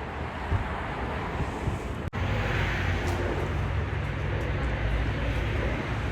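Outdoor city street ambience: a steady rumble of traffic with indistinct voices. About two seconds in the sound breaks off sharply and resumes with the low rumble stronger.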